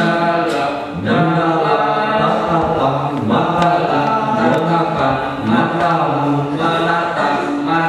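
Live acoustic band playing a song: singing over acoustic guitar, small guitars, cello and upright double bass, the voice holding and shifting long notes over steady low bass notes.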